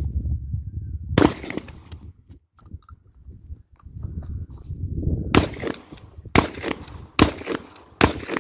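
Dickinson pump-action shotgun firing birdshot target loads: a single shot about a second in, then four shots about a second apart in the second half.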